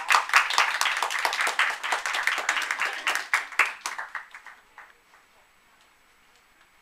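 Audience applauding with dense clapping that thins out and dies away about four to five seconds in.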